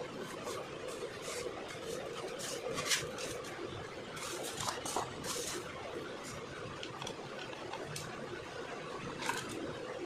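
Scattered rustles, scrapes and light clicks of hands handling a foam RC jet and its plastic transmitter in a styrofoam packing tray, over a steady background hum.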